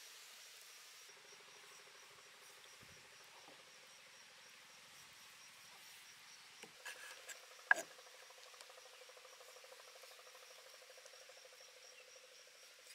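Faint steady trilling of insects, with a few short knocks of a kitchen knife on a wooden chopping board while raw chicken drumsticks are cut, the sharpest about eight seconds in.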